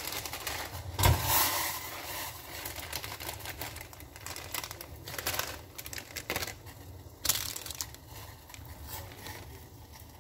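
Plastic instant-noodle packet crinkling as it is handled and torn open, irregular crackles with the loudest about a second in.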